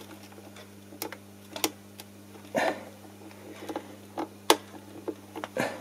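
Scattered light clicks and knocks, about half a dozen, as a guitar control knob is pressed and worked onto a volume potentiometer's split aluminium shaft.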